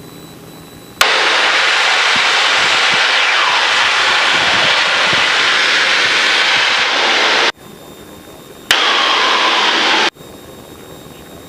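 Headset audio in a Piper Cherokee cockpit: a loud, steady hiss cuts in suddenly with a click about a second in. It holds for about six seconds and cuts off, then returns for about a second and a half, as the audio channel opens and closes.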